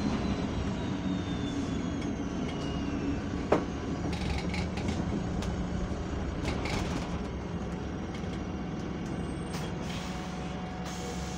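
Double-decker bus heard from inside on the upper deck: a steady engine drone, with a high whine that falls in pitch over the first three seconds as the bus slows. One sharp knock sounds about three and a half seconds in, and light clicks and rattles follow.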